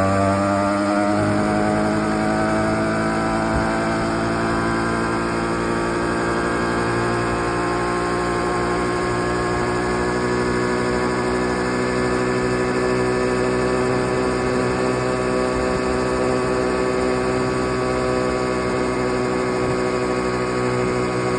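Small two-stroke minibike engine under way. It climbs in pitch over the first couple of seconds as the bike speeds up, then holds a steady pitch while cruising.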